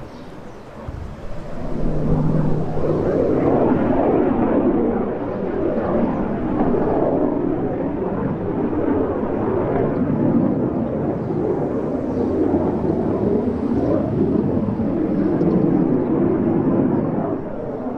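Jet noise from a Mirage 2000-5 fighter's single SNECMA M53 turbofan on approach with its landing gear down. The rumble swells about two seconds in, holds loud and steady, and eases slightly near the end.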